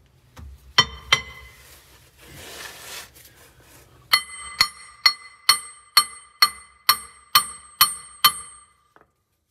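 Hammer blows on the MCI coach's steel radius rod end at its axle mount, a rod found faulty on inspection, each blow ringing like struck steel. Two blows come about a second in, then a steady run of ten, about two a second.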